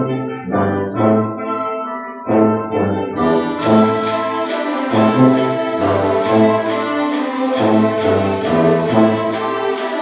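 A student orchestra playing a lively piece in short, repeated chords, with strings prominent. The sound grows fuller and brighter about three and a half seconds in.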